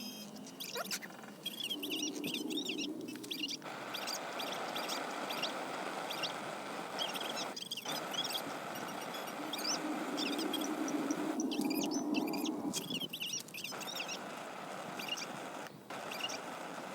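Small birds chirping repeatedly over a steady outdoor hiss, which drops out briefly several times.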